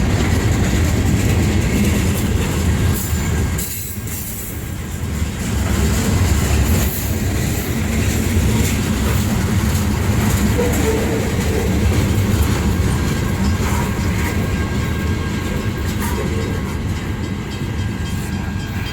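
CSX freight train rolling past: a steady rumble of steel wheels on rail with some clatter and a faint high wheel squeal, briefly easing a few seconds in.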